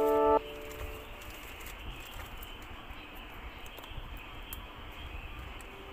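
Background music of bell-like chiming tones cuts off about half a second in. After that there is only a steady low hiss of room noise with a few faint ticks.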